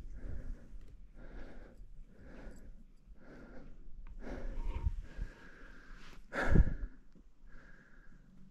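A hiker breathing hard in regular breaths, about one a second, while climbing uphill through deep snow. There is a brief loud thump about six and a half seconds in.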